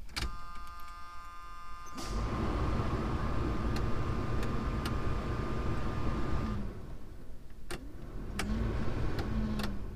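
A square-body Chevrolet C10 pickup's engine starts about two seconds in and then runs steadily, while a warning buzzer sounds for the first several seconds. The heater/AC control levers click several times as the newly installed blower motor is switched on to test it.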